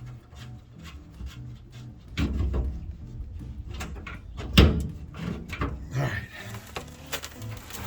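Knocks, clatter and scraping of tools and metal parts being handled during fuel-tank work on a pickup, with one sharp loud clank about four and a half seconds in and a run of lighter clicks near the end.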